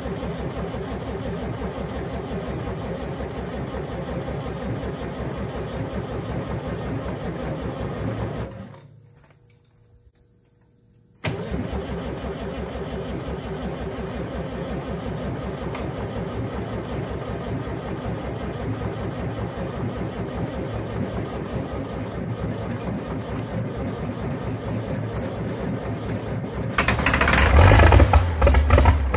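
Allis-Chalmers D17 diesel engine cranking on its starter for about eight seconds, stopping, then cranking again until it fires near the end and runs louder. It is the first start after an engine swap, with the injection pump and injectors freshly fitted.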